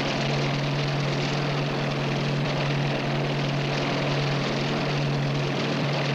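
Aircraft engine drone, a steady low hum with an even, unchanging pitch.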